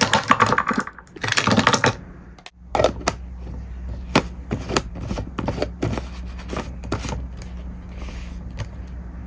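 Round ice cubes dropped into a container, a quick run of clattering clinks for about two seconds, then separate clinks one at a time.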